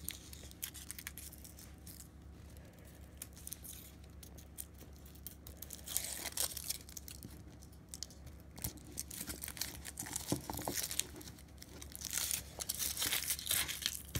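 Thin foil wrapper of a Kinder Surprise chocolate egg being peeled and torn off by hand: a run of small crinkles and rips, busiest near the end.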